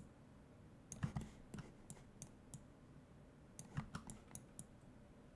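Faint, scattered clicks of a computer mouse used to select and drag points in a 3D modelling program: a short run about a second in, a few single clicks around two seconds, and another run near four seconds.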